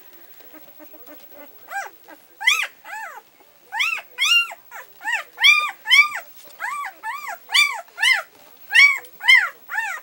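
Six-day-old newborn puppies squealing and whining as they wake to nurse: a run of short, high, rising-then-falling squeaks, about two a second, beginning about two seconds in.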